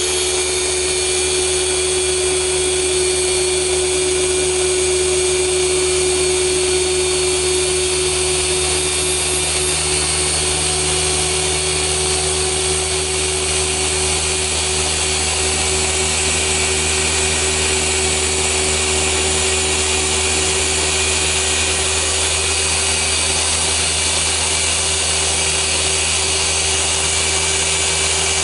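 Rupes LHR 15 random-orbital polisher running steadily, its foam pad working over car paint during paint-defect correction: an even motor whine that does not change.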